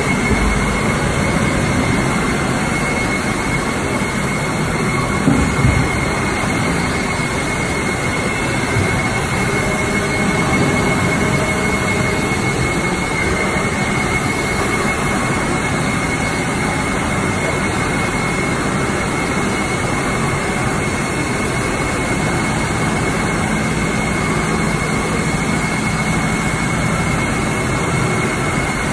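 Injection moulding machinery running steadily on the factory floor: a loud, even mechanical noise with a steady high whine, and a couple of brief knocks about five seconds in.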